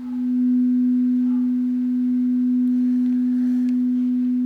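A planetary tuning fork sounding one pure, steady low tone. It swells up over about half a second, then holds evenly.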